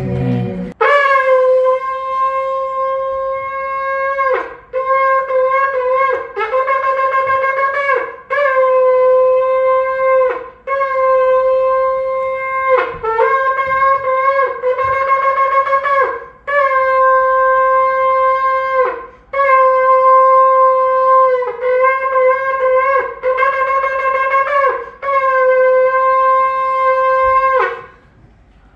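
Shofar blown in a series of about a dozen blasts on one held note. Each blast drops in pitch as it ends, and some are broken into short wavering pieces: the Rosh Hashanah shofar calls.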